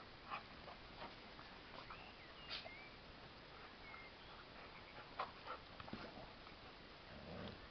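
Faint scuffles and thuds of two Rhodesian Ridgebacks running and play-fighting on grass, with a short low sound from the dogs near the end as they wrestle. A few brief high chirps come through in the first half.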